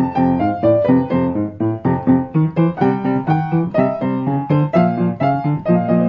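Background music on a piano-like keyboard: a melody of quick, evenly spaced notes.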